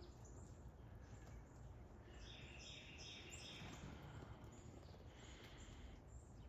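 Near silence with faint bird calls: a run of short, repeated high chirps about two to four seconds in, and a few more about five seconds in.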